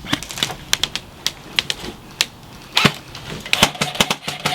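Airsoft guns firing: a quick, irregular run of sharp snapping shots from several guns, some close and some farther off, with two louder shots about three seconds in and a little later.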